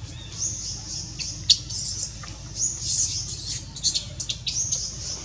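High-pitched animal calls: a thin call that rises and is held briefly, coming back about every two seconds. Between about one and a half and four seconds in, a quick cluster of sharp chirps and squeaks joins it.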